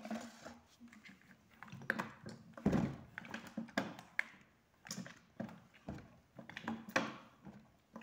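Large plastic bottle of seawater mixed with sodium hydroxide solution being shaken and tipped over on a wooden table: irregular knocks and crackles of the plastic.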